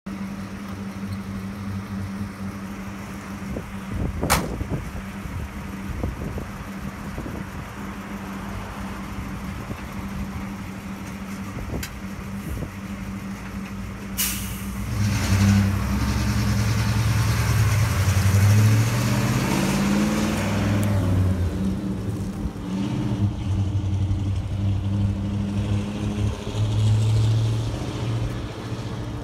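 ZIL-131 army truck's V8 petrol engine idling steadily, with a sharp bang about four seconds in, likely the cab door shutting. About halfway through, a sharp click and hiss of air brakes releasing, then the engine revs up and down through the gears as the truck pulls away and drives off.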